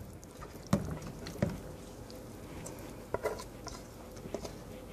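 Thick pumpkin mixture being scraped out of a speckled enamelware bowl into a glass bowl of cream cheese: soft wet plops and scraping, with a few light knocks of the utensil against the bowl.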